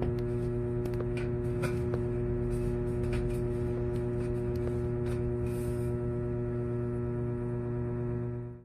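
Background ambient music: a steady sustained drone chord with a few faint clicks under it, fading out at the very end.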